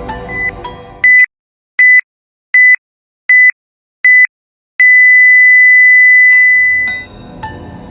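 Countdown timer beeps: five short, high, pure electronic beeps about three-quarters of a second apart, then one long beep of about two seconds, like time-signal pips marking a timer interval. Background music stops for the beeps and comes back near the end.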